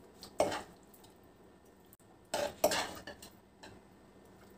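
Metal kitchen utensils clinking and clattering against stainless-steel cookware: a short clatter about half a second in, then a longer cluster of clinks around two and a half seconds in, over a faint background hiss.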